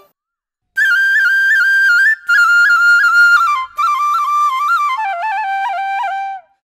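Solo flute melody with quick ornamented turns, played in three short phrases that step down lower near the end, then stops.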